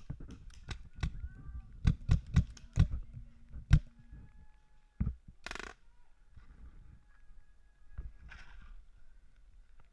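Paintball marker firing: a quick, uneven run of sharp pops over the first four seconds, then a few single shots spaced out, with a short hissing burst in between.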